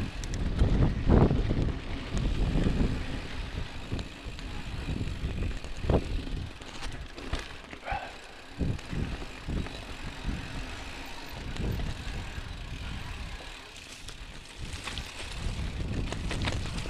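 Mountain bike rolling fast down rough dirt singletrack: tyre rumble, wind buffeting the microphone, and the bike rattling with uneven knocks as it hits bumps.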